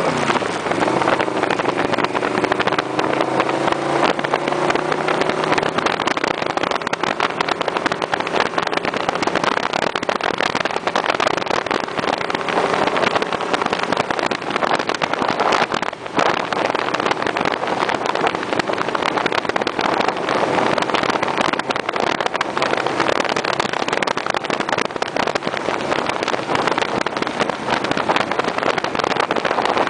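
Motorcycle engine running at road speed under a heavy rush of wind on the microphone. The engine note climbs in the first few seconds, then the wind noise dominates.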